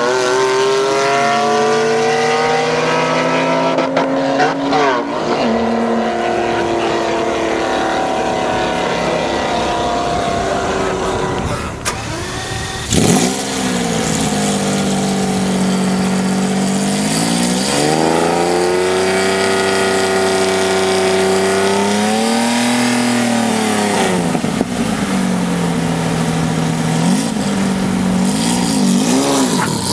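Lamborghini Diablo SV's V12 engine revved while the car stands at the start line, held high and then let fall and rise again three or four times, with quick blips near the end. For the first twelve seconds or so a car engine holds steady revs at the line.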